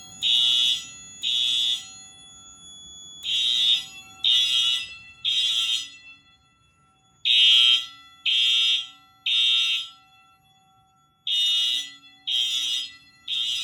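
Fire alarm sounder beeping a high-pitched temporal-3 pattern: sets of three half-second beeps, one per second, with a pause of about a second and a half between sets. This is the standard evacuation signal of a fire alarm system in alarm.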